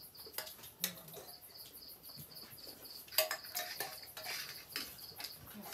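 Steel plates, bowls and a serving pot clinking now and then as people eat and serve, the sharpest clink a little after three seconds in, over an insect chirping steadily at about four pulses a second.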